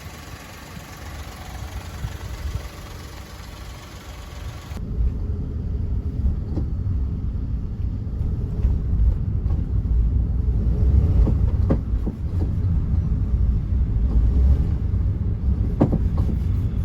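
Suzuki MR Wagon on the move: a steady low rumble with a few short, sharp knocks or rattles scattered through it. The owner suspects the abnormal noise comes from a loose screw. About five seconds in, a high hiss stops abruptly and the rumble grows louder.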